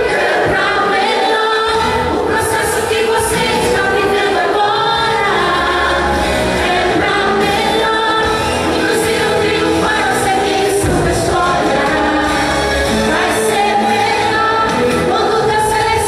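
A woman singing a gospel praise song into a handheld microphone, amplified through a PA, over continuous instrumental backing with cymbal strokes.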